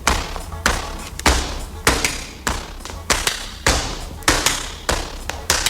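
Steady beat of sharp percussive hits, about one every 0.6 seconds, each with a short ringing tail: the song's percussion bleeding into the vocal microphone on the isolated vocal track. A low hum runs underneath.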